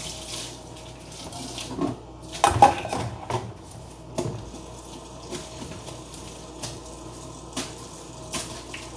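Kitchen tap running into a sink, with dishes and utensils clattering against it; the loudest clatter comes about two and a half seconds in.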